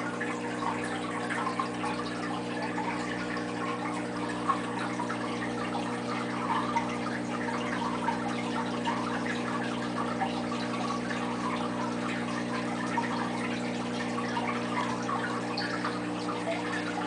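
Saltwater aquarium's circulating water trickling steadily, with small scattered pops and crackles, over a constant low electrical hum from the tank's equipment.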